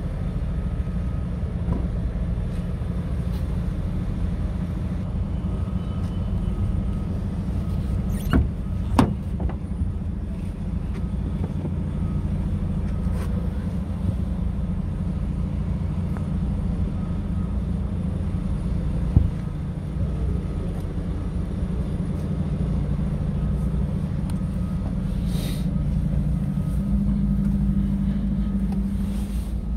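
Scania R truck's diesel engine idling steadily, a low even hum, with a few sharp knocks about a third of the way in and one more about two-thirds in.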